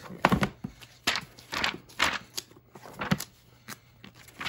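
Irregular rustling and bumping handling noises, about eight short scuffs spread across the few seconds, as something held close is turned over and looked at.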